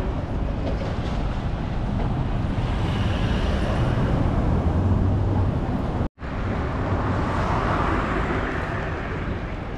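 Steady road-traffic noise of cars and other vehicles going by, with a low engine hum swelling about four to five seconds in. The sound cuts out suddenly for an instant about six seconds in.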